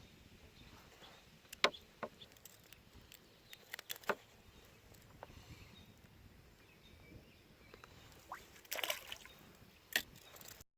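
Faint water and outdoor ambience on a fishing kayak, broken by scattered light clicks and knocks, with a cluster of them about nine seconds in. The sound cuts off abruptly just before the end.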